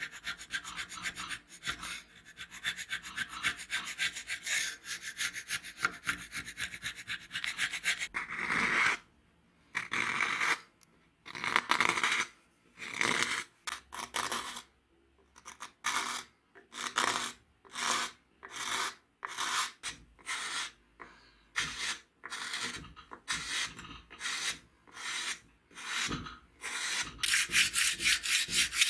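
Wood of an antique wooden level being rubbed down by hand with an abrasive, in scraping back-and-forth strokes. The strokes are continuous at first, then come about one a second, and turn quick again near the end.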